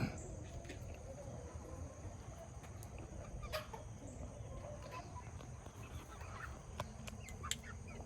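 Chickens clucking softly, with a few light clicks.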